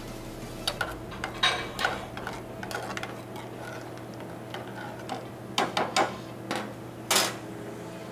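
Long metal spoon knocking and scraping against a metal saucepan while corn kernels in broth are stirred: a scattering of sharp clinks, with a last loud clatter near the end.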